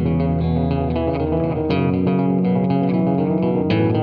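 Background music: a rhythmic, guitar-led instrumental track with bass, changing chords about every two seconds.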